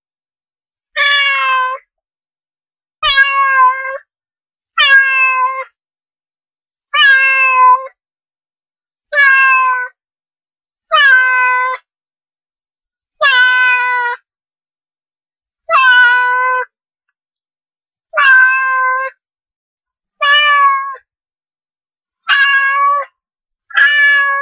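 Domestic cat meowing repeatedly: about a dozen separate meows, each under a second long, coming roughly every two seconds with complete silence between them.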